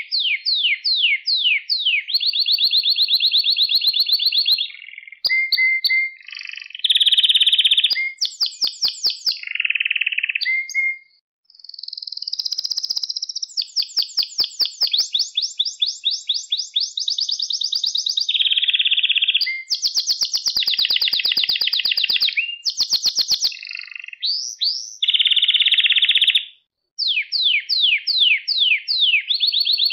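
Male domestic canary singing a long, varied song: high, fast trills of repeated notes and rapid downward-sweeping whistles, one phrase after another with only brief pauses.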